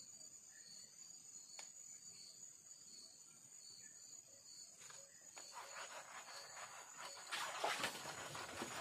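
Insects chirping: a steady high buzz with a pulsed call about twice a second. From about halfway, rustling and scuffing in leaf litter and undergrowth builds up and is loudest near the end.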